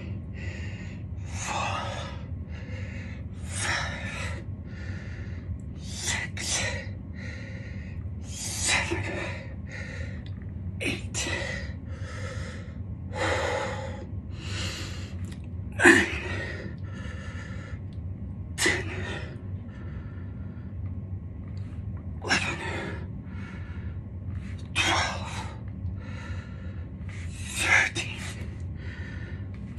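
A man breathing hard through a set of push-ups: a sharp, forceful exhale about every two to three seconds with quieter breaths between, over a steady low hum.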